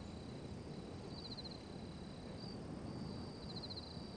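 Crickets chirping faintly: a thin, steady high trill with short pulsed bursts about every two seconds, over a low background hiss.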